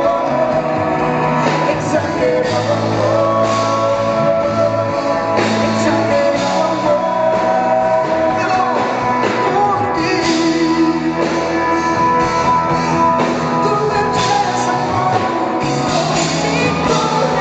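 Live pop music from a band amplified in a concert hall, with a man and a woman singing into microphones over keyboards and drums.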